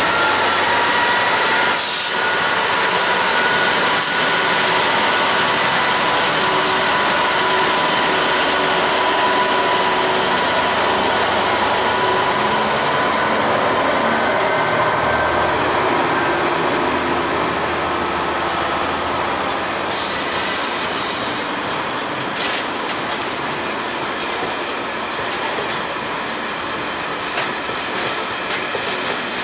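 A long freight train of loaded engineering ballast wagons rolling past at speed. Steady high-pitched wheel squeal runs through the first half, then wheel clicks over rail joints come through toward the end.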